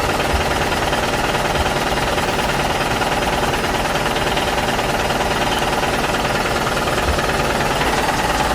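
Small electric motors and plastic gearboxes of RC toy construction trucks running, a steady rattling buzz.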